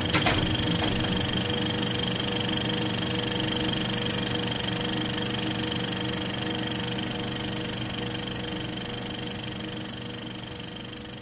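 Film projector running: a steady mechanical whir and rattle with a constant hum, a few clicks about at the start, slowly fading toward the end.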